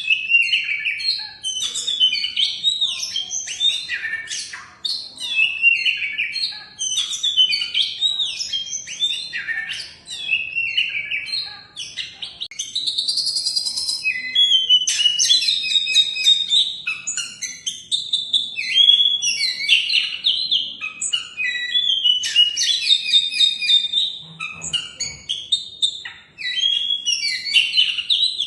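Oriental magpie-robin (kacer) singing a long, varied song of quick whistled and chattering phrases that rise and fall, with only brief pauses.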